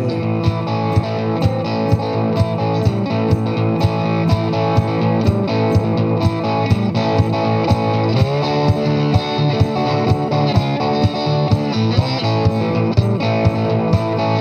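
Cigar box guitar playing an instrumental passage over a steady beat of about two and a half knocks a second, with the pitch sliding up about eight seconds in.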